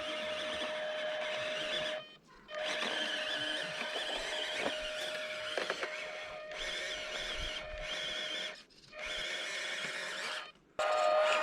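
Electric drivetrain of an RC crawler truck whining steadily, cutting out briefly about two seconds in and twice more near the end as the throttle is let off.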